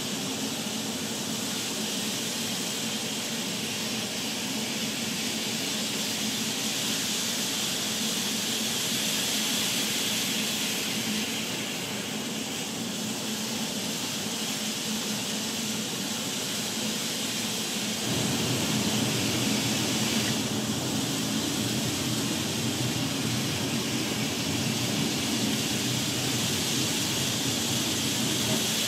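N scale model trains running on Kato track: a steady whir of small motors and wheels on rail. About two-thirds of the way through it gains a fuller low rumble and gets slightly louder.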